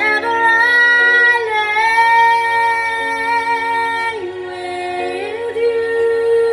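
A woman singing a slow ballad, holding long notes that change pitch a few times.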